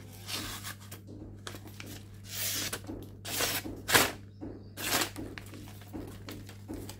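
Sharp knife blade slicing through sheets of paper in a sharpness test: a series of quick rasping cuts, about six strokes, the loudest about four seconds in.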